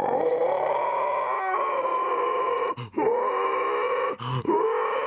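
A person's voice making long, drawn-out howling groans, three in a row with short breaks between them.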